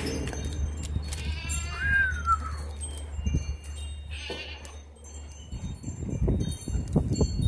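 Wind chimes tinkling, with scattered high ringing notes. A short squeak that rises then falls comes about one and a half seconds in, and there are low knocks near the end.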